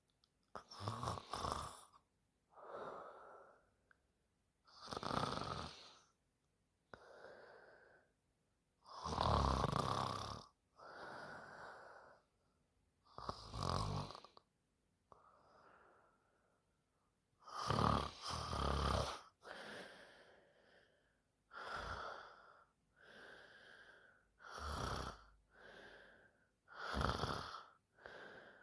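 A woman snoring in her sleep: a run of uneven breaths, about one every second or two, with some snores much louder and deeper than the others.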